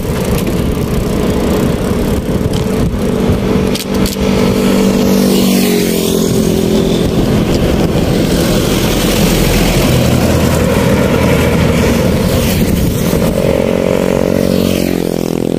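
Motorcycle engine running on the move, under heavy rushing wind noise on the microphone. The engine pitch drops about six seconds in and climbs again near the end.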